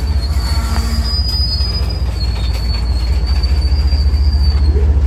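Freight train rolling slowly as it takes up slack after a stop: a thin, high squeal from steel wheels on the rail, wavering slightly in pitch, over a heavy low rumble of the cars.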